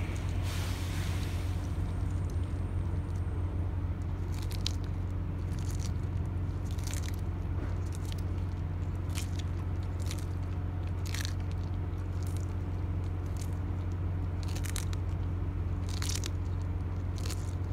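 Sulcata tortoise biting and chewing a fibrous cactus pad: crisp, irregular crunches about once a second, over a steady low hum.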